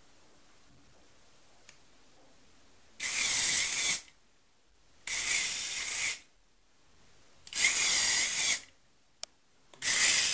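LEGO Power Functions motor whirring in four short bursts of about a second each, roughly two seconds apart, each burst throwing the remote-controlled LEGO train switch points. A single sharp click comes between the third and fourth bursts.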